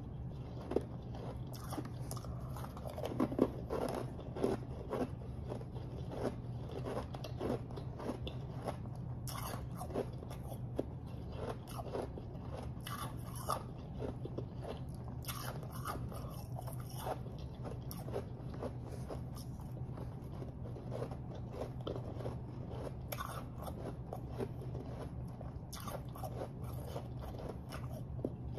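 Close-miked mouth crunching and chewing of refrozen powdery snow ice: a dense run of crisp, irregular crunches, thickest a few seconds in.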